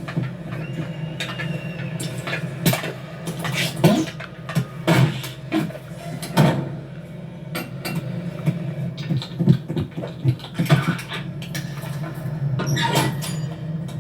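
Animated-film sound effects: a steady low machine hum with many sharp metallic clanks and knocks over it.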